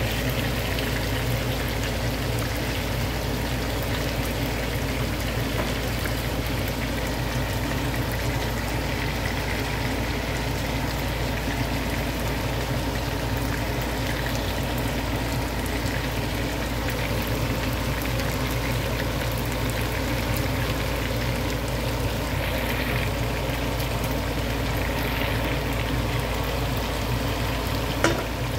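Pork pieces sizzling and bubbling steadily in oil and thickening sauce in a frying pan, with a single click near the end.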